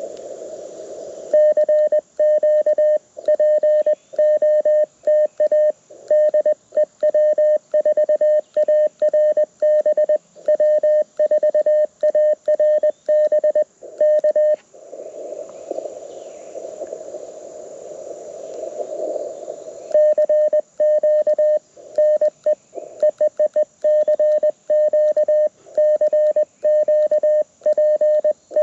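Morse code from a Mountain Topper MTR4B CW transceiver, played through a small portable speaker: one steady beeping tone keyed on and off in quick dots and dashes. It runs in two passages, with receiver hiss filling a pause of about five seconds in the middle.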